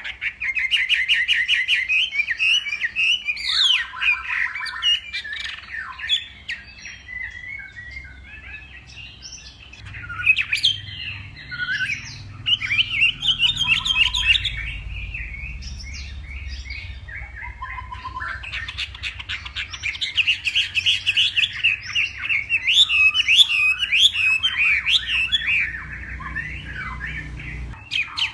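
Chinese hwamei (melodious laughingthrush) singing a long, varied song of rapid trills and quick, repeated whistled phrases, easing off for short spells before bursting out again.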